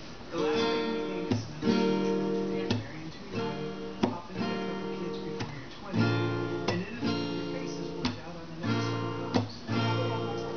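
Acoustic guitar strummed in chords, starting about half a second in, with a fresh stroke every second or so and the chord changing every few strokes.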